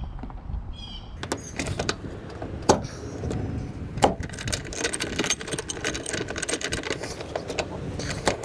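Metal clicks and knocks of hand tools and latch hardware while a Jeep Wrangler JK hood latch is fitted and tightened: two sharp knocks, then a run of rapid clicking.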